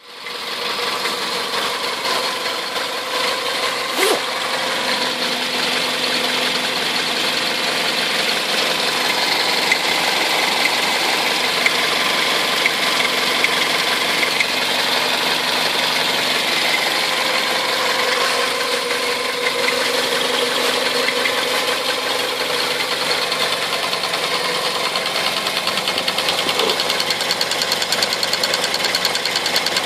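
Toyota 1ZZ 1.8-litre four-cylinder engine running steadily with a fast, even knock that has newly appeared. A single sharper click comes about four seconds in.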